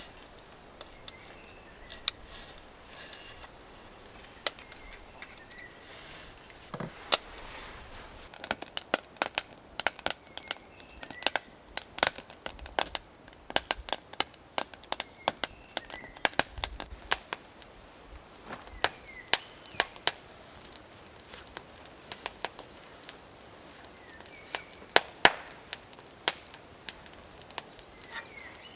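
Irregular sharp snaps and knocks, sparse at first and densest through the middle, with faint bird chirps.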